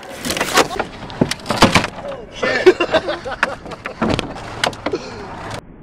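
Camera handling noise: a rapid, irregular run of knocks, bumps and rubbing as the microphone is pressed and knocked against clothing and a life jacket, cutting off suddenly near the end.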